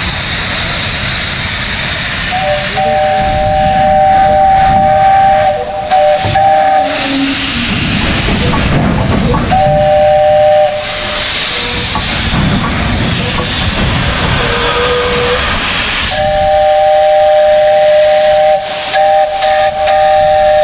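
Steam locomotive's whistle sounding a steady two-note chord three times: a long blast about two seconds in, a short one around ten seconds, and another long one starting near sixteen seconds. Under it runs a loud continuous hiss of steam venting around the cylinders as the engine starts moving.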